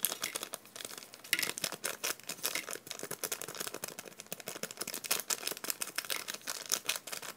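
Plastic powder packet crinkling as it is squeezed and shaken to empty its powder into a plastic tray: a rapid, uneven run of crackles that stops near the end.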